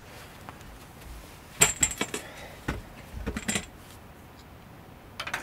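Light clatter of small hard objects being handled: sharp clicks and rattles in two clusters, about a second and a half in and about three seconds in, with a brief one near the end.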